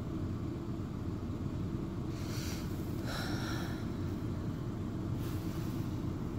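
Steady low background rumble, with a few brief soft hisses a little after two seconds in, around three seconds in, and again around five seconds.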